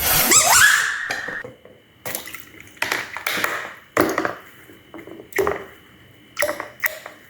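Slime being squished and pulled by hand: a series of short wet squelches, after a louder opening sound with a rising, whistle-like pitch in the first second or so.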